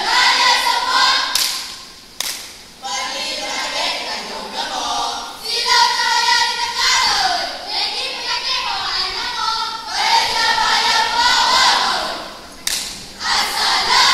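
A school choral speaking group of many voices chanting and singing in unison, with a few sharp hits struck together: one about a second and a half in, one about two seconds in, and one near the end.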